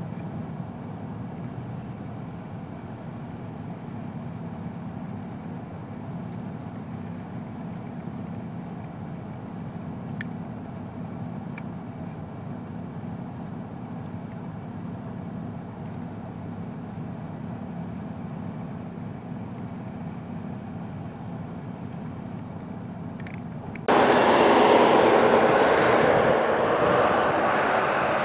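Steady low rumbling noise, then about 24 seconds in a much louder rushing noise cuts in suddenly and keeps on.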